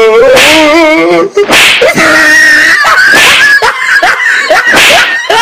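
A person wailing and shrieking loudly in a wavering, trembling voice, then a high held cry with short sliding yelps: the wordless cries of a character possessed by a ghost.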